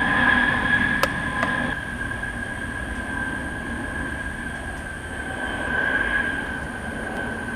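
Military aircraft flying overhead, heard from the ground: a steady, high engine whine over a low rumble. The rumble eases about two seconds in, and the whine swells briefly near the end. A sharp click comes about a second in.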